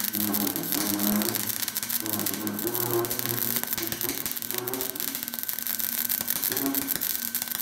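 Gasless flux-cored wire welding arc from a MIG/MAG welder, crackling and spattering without a break, with a wavering buzz underneath.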